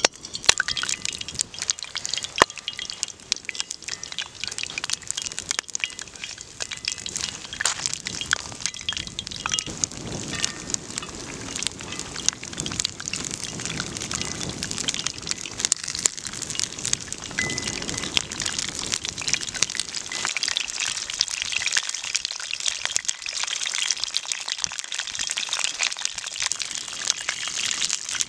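Belyashi, meat-filled dough pies, frying in a pan of hot oil: dense, steady sizzling and crackling with a few sharper pops. The sizzling jumps up as the first raw pie goes into the oil.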